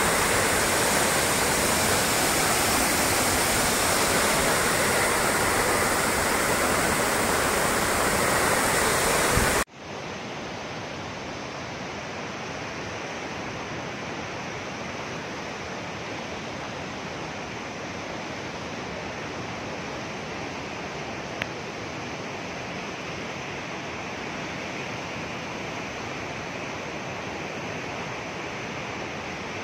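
Muddy floodwater pouring down a stepped stone embankment, a loud steady rush of water. About ten seconds in it cuts abruptly to a quieter, duller steady rush of a flooded river.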